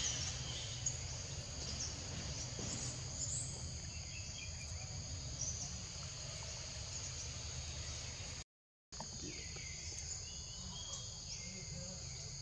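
Steady outdoor insect drone, crickets or cicadas, with a low rumble beneath. About three-quarters of the way in, the sound cuts out completely for a split second. After that, short falling chirps sound about once a second.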